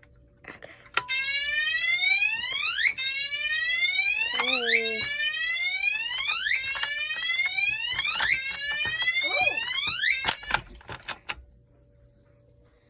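Gentex Commander-3 fire alarm horn sounding its whoop tone, set off from a Simplex T-bar pull station: about five loud rising sweeps, each under two seconds, that cut off suddenly about ten seconds in. A few clicks follow the sweeps.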